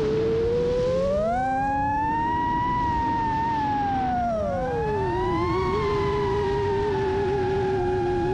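FPV racing quadcopter's brushless motors and propellers whining in flight, the pitch following the throttle. It rises about a second in, holds high, drops around the four-to-five-second mark and stays lower after that, over a rush of air noise.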